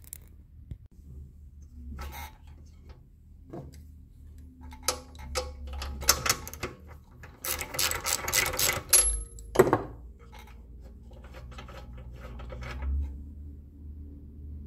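Socket ratchet clicking in quick runs while a spark plug is turned out of a small Briggs & Stratton engine, with a louder metal knock near the middle.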